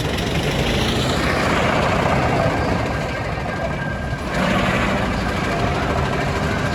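Steam traction engines and steamrollers running, a steady rushing noise with a low hum beneath, which gets suddenly louder about four seconds in.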